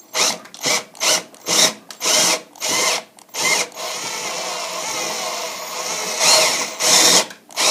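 Electric drill boring an 11/16-inch bit into a lead water pipe. The trigger is feathered in short pulses about twice a second, then the drill runs steadily for about two seconds, then two more pulses. He is going carefully so the bit does not break through the thin lead wall.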